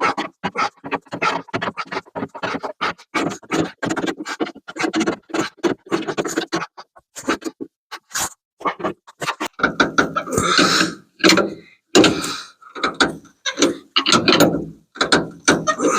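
Hand wrench working the lower rear shock-absorber nut tight: a quick run of metal clicks and scrapes, with heavier knocks in the second half.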